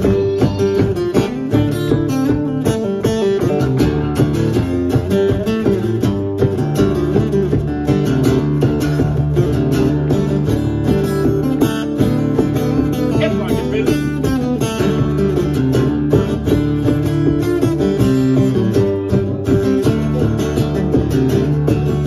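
A live folk band playing an instrumental introduction in a steady rhythm: a strummed acoustic guitar over a beaten bodhran, with fiddle.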